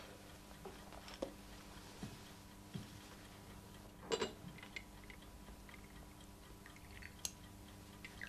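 Quiet, scattered clinks and knocks of china as a coffee pot, cups and saucers are handled and set down on a table, with a louder clatter about four seconds in.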